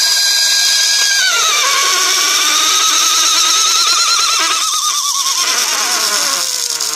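Small 1.5 V brushed DC motor with a plastic gear train, driven by a brushless ESC through a diode half-wave rectifier, running with a loud high whine whose pitch follows the throttle. It holds steady for about a second, drops about a second and a half in, wavers, then falls steadily through the second half as the throttle is eased back, showing some proportional speed control.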